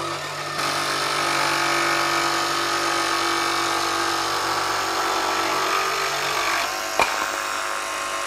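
Makita XVJ01Z 18-volt brushless barrel-grip jigsaw running steadily as it cuts a curve through plywood, with the blade's orbital action set to 1. A sharp click about seven seconds in.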